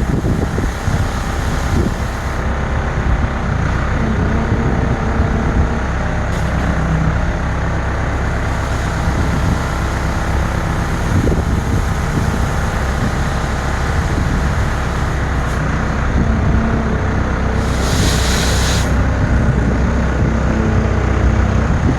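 Heavy diesel engine of a work machine running steadily, with a short burst of hiss about three quarters of the way through.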